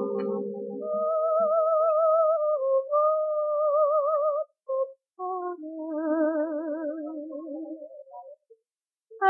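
Music played back from a 1943 V-Disc 78 rpm record: a slow melody of long held notes with a wide vibrato and no words, with short breaks between phrases.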